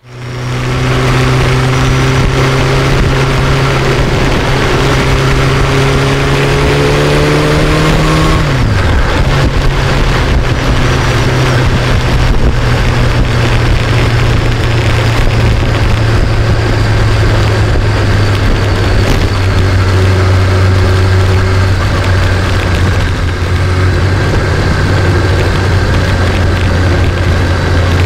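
Sport motorcycle engine running under way, heard from the rider's seat over steady wind rush. Its pitch climbs slowly, drops sharply about eight seconds in, then holds steady.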